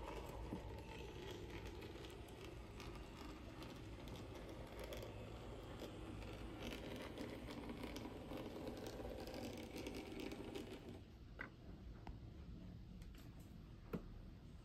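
HOe narrow-gauge model train running: the small locomotive's motor and the coal wagons' wheels give a steady rattling whirr on the track, which stops about eleven seconds in, followed by a couple of sharp clicks.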